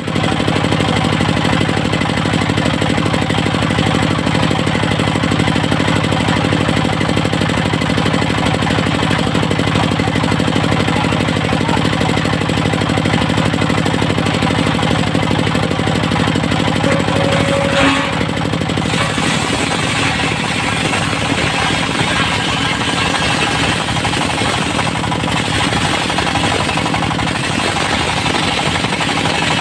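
Engine-driven portable circular sawmill running steadily. About 18 seconds in there is a sharp knock, and the sound turns rougher and noisier, with more hiss, for the rest of the stretch.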